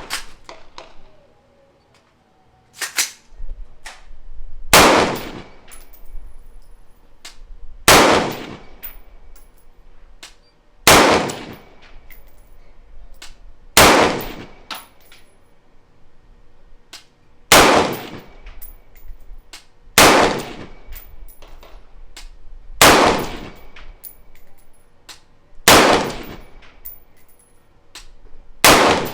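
AR-15 rifle chambered in .223 Wylde firing nine single aimed shots, about three seconds apart, each shot followed by a ringing echo that dies away. A light click comes just before the first shot.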